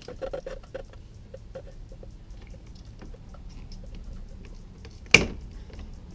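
Tin snips cutting through the plastic front bumper trim of a Toyota Tacoma. A quick run of small crunching clicks comes first, then scattered light ticks, then one loud sharp snap about five seconds in.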